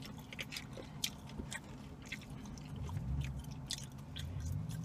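Close-up chewing of takeout food (rotisserie chicken and fries), with frequent wet mouth clicks and smacks. A low hum swells about three seconds in and again near the end.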